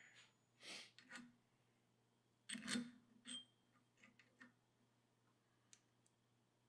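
A few faint metallic clicks and clinks of small steel parts being handled as a kingpin bushing is set onto the tool. The loudest clink comes about two and a half seconds in and rings briefly, followed by a few small ticks. Otherwise near quiet.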